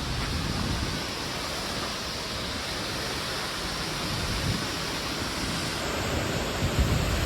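Waterfall heard close up: a steady, dense rush of falling water, with some uneven low rumble near the end.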